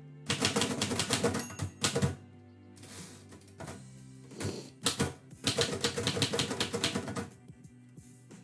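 Typewriter keys striking in rapid bursts of typing, with short pauses between the runs. Background music with steady notes underneath.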